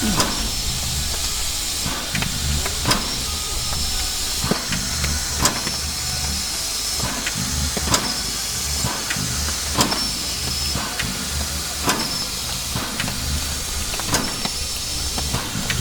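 Class L steam locomotive idling: a steady hiss of steam, with a low pulsing throb and sharp knocks that come back about every two seconds.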